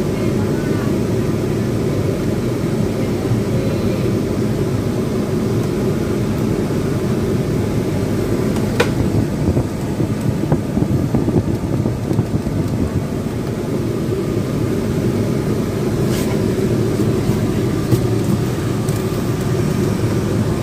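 Steady low drone of a car, with a few light clicks of plastic dashboard trim as a cord is pushed into the gap at its edge.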